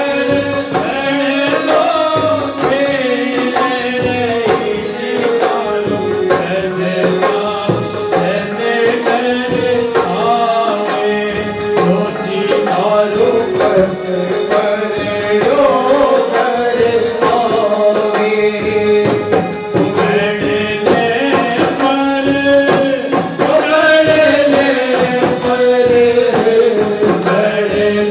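Phagan folk song (rasiya) sung in chant-like style, the vocal line carried over steady percussion.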